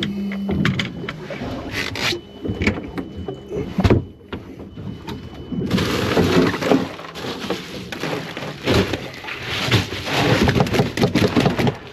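Irregular knocks, clatter and rushing noise of handling on a small fishing boat, busier in the second half. Under it in the first half is a faint, steady high beep from the trolling motor's alarm, which cuts off abruptly about halfway.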